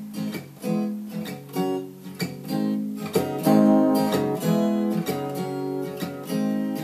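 Acoustic guitar strummed in a run of chords with no voice, coming in sharply after a quieter moment.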